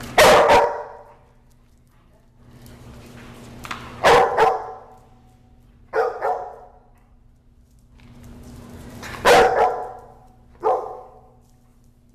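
Dog barking in play: five single barks spaced a couple of seconds apart.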